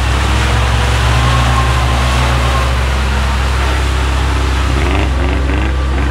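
An off-road 4x4's engine running at steady revs, with a loud rushing noise over it.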